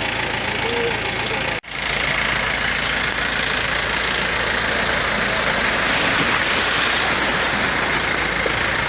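A vehicle engine running in deep floodwater over a steady rush of flowing water. The sound drops out for an instant about a second and a half in.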